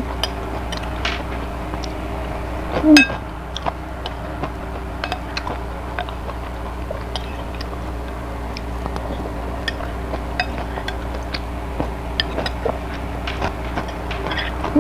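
Metal spoon clinking and scraping against a ceramic bowl while eating, in scattered light clicks with one louder knock about three seconds in, over a steady low hum.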